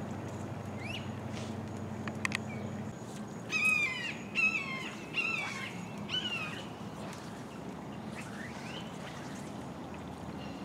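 Birds calling: short rising chirps, then a run of four or five louder, harsh calls with a falling pitch from about three and a half to six and a half seconds in. Two sharp clicks come shortly before the harsh calls.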